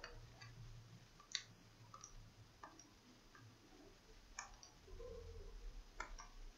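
Faint, irregular clicks and taps from small laptop parts and a hand tool being handled during reassembly, about eight in all, with one sharper click about a second and a half in.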